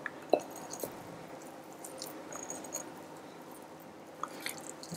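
Fingers pushing soft raw minced-meat filling into a hollow yellow pepper: faint squishing of the stuffing, with a few small clicks, the sharpest about a third of a second in.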